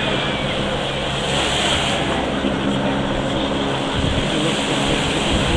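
A steady engine drone with a low, even hum over a background of outdoor noise; the hum fades about four seconds in.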